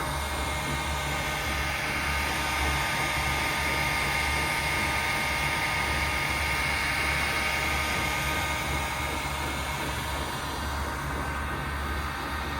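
A small electric motor running steadily, a whine that swells a little in the middle over a constant low hum.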